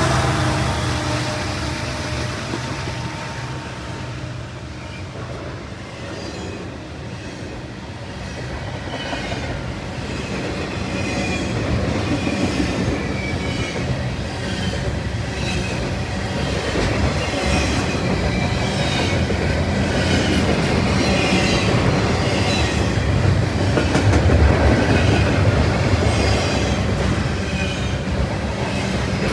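CN double-stack intermodal freight train's well cars rolling past: a steady rumble of wheels on rail with a regular beat of clatter as wheels cross the rail joints. The locomotives' engine noise fades in the first few seconds, and the rolling noise grows louder again from about ten seconds in.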